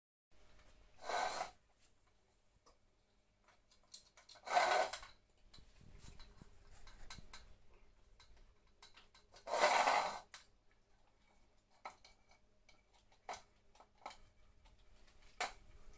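Two cats eating together from one bowl: faint scattered clicks and rubbing of food and bowl. Three short, loud breathy puffs of noise stand out, about a second in, near four and a half seconds and near ten seconds.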